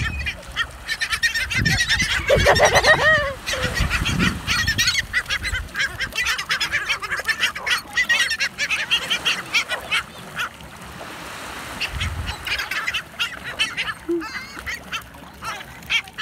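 A flock of Heermann's gulls fighting over fish, calling over and over in short overlapping squawks. The calls are densest in the first half and thin out later, over the steady wash of surf.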